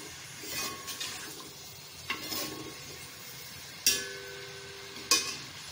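Sliced onions frying in oil, sizzling steadily, while a steel spoon stirs and scrapes against the pot. It clinks against the metal several times; the loudest clink, about four seconds in, rings briefly.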